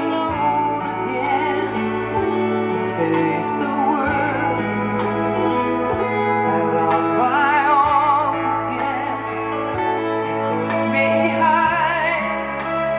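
A song with a sung melody, its voice wavering in vibrato, played through a 12-inch Wharfedale loudspeaker under test. The bass is round and full.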